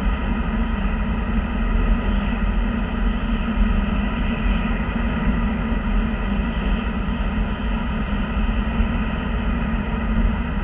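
Steady road noise inside a car cruising at highway speed: an even, low-heavy roar of tyres and engine with no distinct events.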